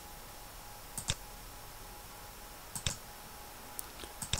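Computer mouse clicking a handful of times, quick sharp clicks, several in close pairs, spaced unevenly, over a faint steady hum.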